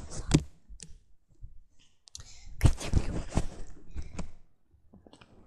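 Handling noise from a tablet being picked up and moved around: knocks and rubbing right on its microphone, with a sharp knock near the start and a louder run of bumps and rustling about two to four seconds in.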